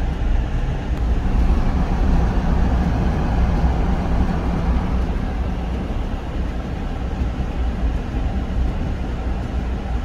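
Steady low road and engine noise inside a Ram pickup's cab, driving slowly in four-wheel drive over a snow-covered road.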